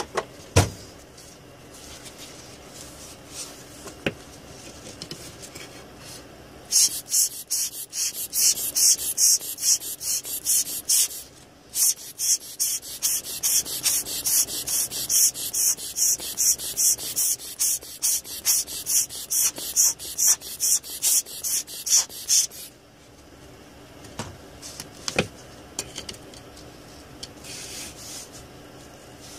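A brush scrubbing alcohol and flux residue off the ball side of a freshly reballed BGA graphics chip: quick back-and-forth strokes, about three a second, for some fifteen seconds, with a short break partway through. A few light knocks come before and after.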